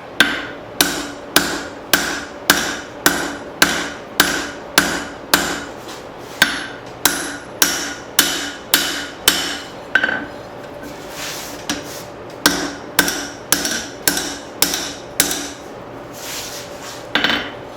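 Hammer blows on hot leaf-spring steel at the anvil, about two a second, each with a short metallic ring, as the blacksmith isolates a section for a set down. The blows pause for about two seconds near the middle, resume for a few more, and end with a single blow near the end.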